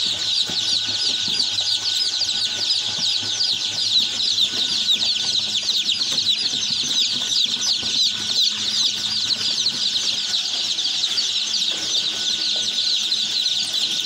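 A large crowd of Lohmann Brown day-old chicks peeping continuously, hundreds of high, short cheeps overlapping, each falling in pitch.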